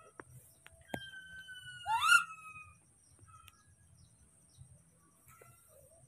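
Baby macaque monkey giving high, whistle-like coo calls. About a second in, a steady call falls slightly in pitch, and just before two seconds in a louder rising squeal overlaps it. After that there are only a few faint short calls.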